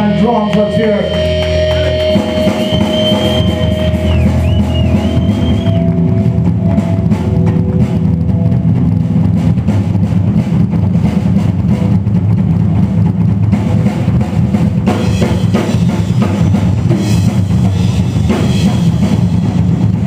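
Live rock drum solo on a full drum kit: dense, continuous bass drum and snare playing. A held guitar chord rings out over the first two seconds, and a thin high whine lingers until about six seconds in.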